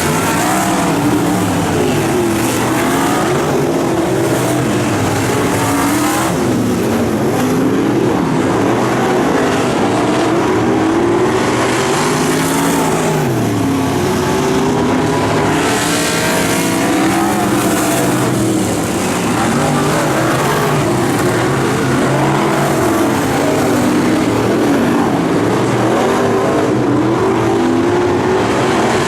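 Several dirt-track race car engines running hard around an oval, their pitch overlapping and rising and falling every few seconds as they lift for the turns and accelerate down the straights.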